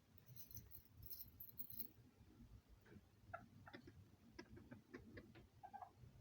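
Faint, short clucks from American Serama chickens, several scattered through the second half, mixed with light ticking clicks.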